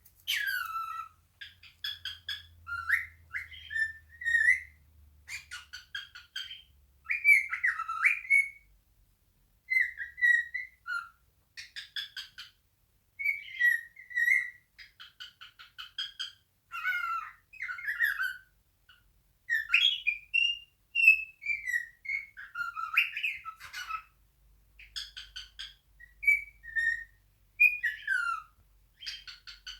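Male cockatiel singing its natural song: short whistled phrases of rising and falling notes, mixed with quick raspy chirps, with brief pauses between phrases.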